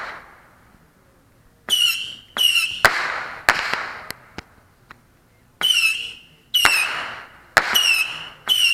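Saturn Missile battery firework shooting off its small rockets: each launches with a short falling whistle and ends in a sharp crack. The shots come in quick clusters, several around the second and third seconds, then a pause of about two seconds before a faster run of whistles and cracks near the end.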